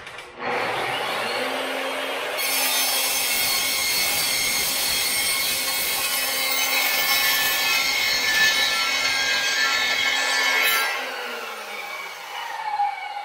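Metal-cutting chop saw spinning up, then cutting through steel stock for about eight seconds with a harsh, grinding noise. Near the end the blade is released and the motor winds down with a falling whine.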